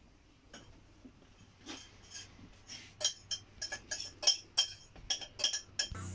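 Rapid, irregular light metallic clinks and clicks, like small metal objects knocking together, getting denser and louder from about two seconds in.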